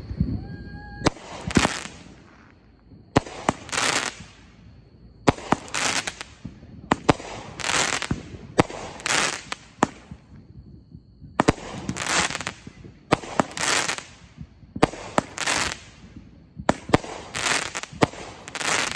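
Brothers "Suspended Animation" consumer fireworks cake firing shot after shot, roughly one a second. Each shot is a sharp report followed by a short hiss as the stars burst, with a brief lull near the start and another about halfway through.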